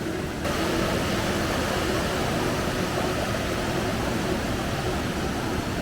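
Steady rush of falling water from the Aira Force waterfall and its beck, an even noise that grows suddenly brighter and louder about half a second in.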